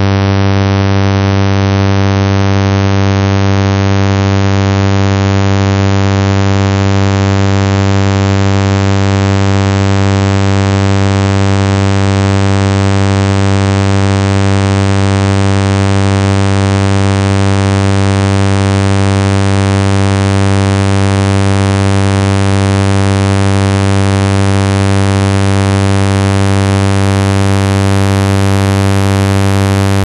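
Synthesized sawtooth wave built from a Fourier series of harmonics: a steady tone pitched around 100 Hz that grows gradually brighter as more and more harmonics are added to the sum.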